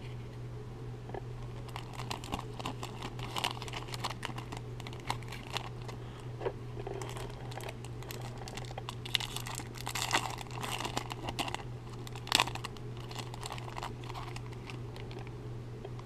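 Wrapper of a 2019 Topps Stadium Club baseball card pack crinkling and tearing as it is pulled open by hand: irregular crackles with a few sharper snaps.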